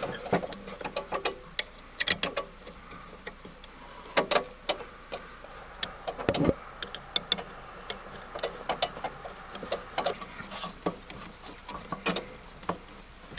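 Irregular metallic clicks and taps of hand tools and screws, some in quick little runs, as square-drive screws are worked out of the mower's belt guards.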